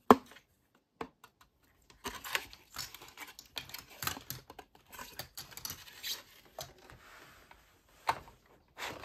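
Small plastic toy pieces and packaging being handled: a sharp click at the start, then after a short lull a busy run of irregular light clicks, taps and crinkly scratching.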